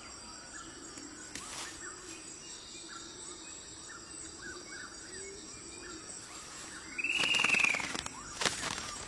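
Quiet forest ambience with faint scattered chirps, then, about seven seconds in, a loud harsh bird call lasting about a second, its pitch arching up and down, and another harsh burst near the end.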